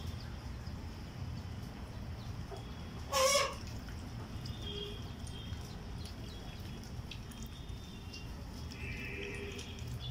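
A golden Fayoumi baladi hen gives one short, loud squawking cluck about three seconds in. Faint high chirps follow twice later.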